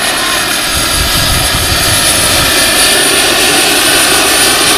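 Turbine-powered radio-controlled scale Lama SA 315B helicopter with a Jakadofsky model turbine in flight: a steady high turbine whine over the rush of the rotors and exhaust, loud as it passes close.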